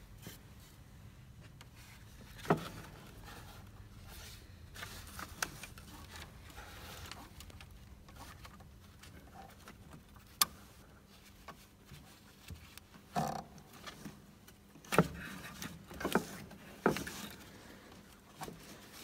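Gloved hands working among plastic and metal parts in a car's engine bay, making scattered sharp clicks and knocks, about seven louder ones, most in the second half, over a faint low hum.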